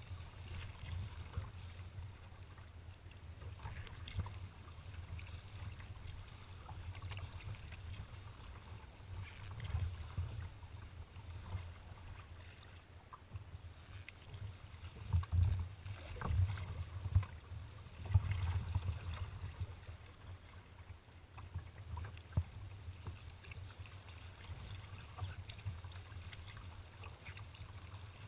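Wind buffeting the microphone in uneven gusts, over water slapping and splashing against a kayak's hull on choppy water.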